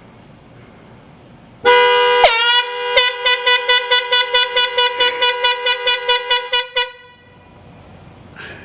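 Air horn blasting: one long blast, then a rapid string of short blasts, about five a second for some four seconds.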